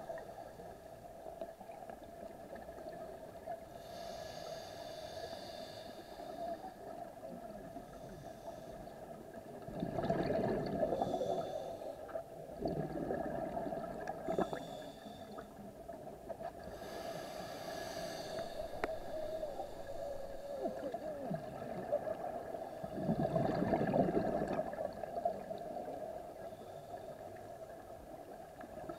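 Scuba breathing through a regulator, heard underwater: slow breaths, each a hiss on the inhale followed some seconds later by a louder rush of exhaled bubbles. A steady low hum runs underneath.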